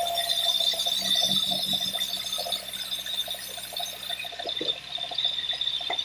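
Band sawmill running with a steady high whine as its blade cuts a squared timber, with a high hiss that stops about four seconds in.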